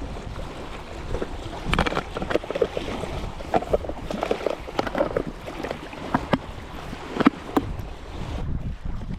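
Water sloshing and splashing close to the microphone, with irregular small knocks and wind noise on the microphone.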